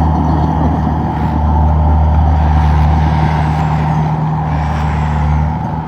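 Komatsu D31P bulldozer's diesel engine running with a steady low drone, dipping briefly near the end.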